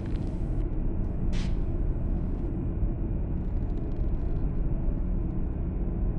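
Low, steady rumbling drone of horror-film ambient sound design, with a brief airy hiss about a second and a half in.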